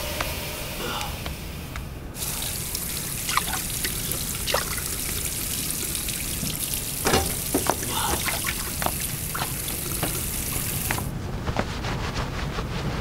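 Bathroom sink tap running into a basin, turned on about two seconds in and shut off near the end, with scattered splashes and clicks from hands in the water.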